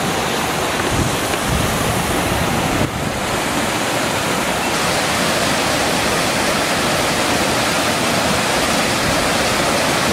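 Madawaska River rapids: white water rushing steadily over rock ledges.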